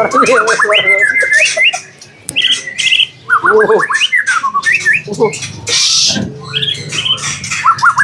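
Caged white-rumped shama (murai batu) singing loudly: a varied run of whistled glides and fast trills, with a short harsh rasping burst about six seconds in.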